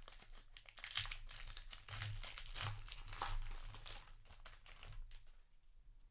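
Foil trading-card booster wrapper crinkling as it is opened and the cards are pulled out, a dense crackle that dies down about five seconds in.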